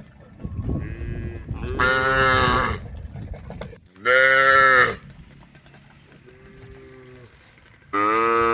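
Several cows mooing in turn: loud moos about two and four seconds in, fainter ones between them, and another loud, long moo starting near the end.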